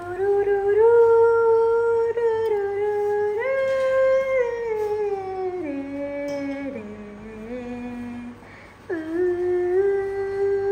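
A woman humming a slow tune in long held notes, the pitch stepping down over the first eight seconds, then a brief pause for breath and a new phrase starting about nine seconds in.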